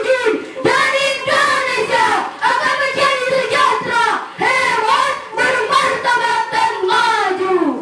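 Young female voices singing a melodic chant into microphones, in long phrases with short breaks between them.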